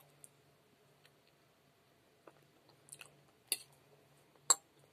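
Someone eating fried potatoes: quiet chewing with a few short, sharp clicks, the loudest about four and a half seconds in, over a faint steady hum.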